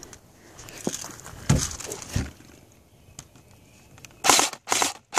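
Crunching and rustling with a few dull thumps, then about four seconds in an airsoft gun starts firing in quick, loud bursts, a little over two a second.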